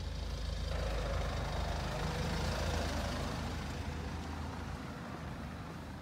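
Low, steady engine hum of a motor vehicle, swelling to a peak about halfway through and then fading away, as a vehicle passing by would.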